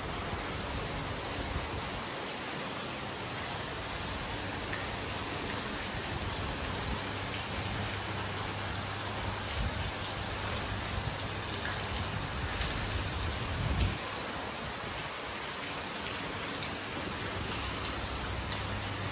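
Steady splashing of a fountain: water jetting from a stone dragon statue and falling into a koi pond.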